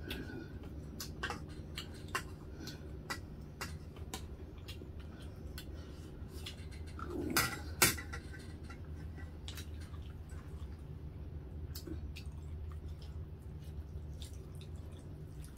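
Small scattered clicks and taps of spoons on plates and bowls during a meal, over a steady low background hum. About seven and a half seconds in, a brief rustle ends in a sharper knock, the loudest sound.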